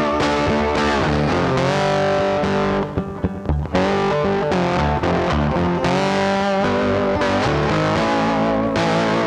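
Blues music with a distorted electric guitar playing sustained, bending lead notes over a steady bass line.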